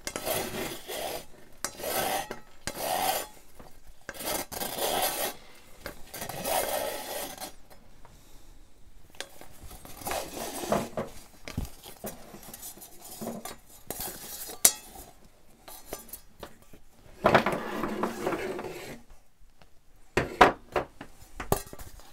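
Fabric-covered twisted lamp cable being pulled through a metal lamp shade and lampholder, scraping in a run of hand pulls about once a second for the first several seconds. Then scattered clinks and knocks of the metal lamp parts, the sharpest about halfway through.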